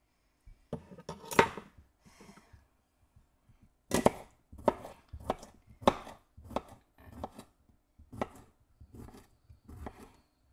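Kitchen knife chopping on a wooden cutting board: a few scattered knocks first, then from about four seconds in a steady run of cuts, nearly two a second.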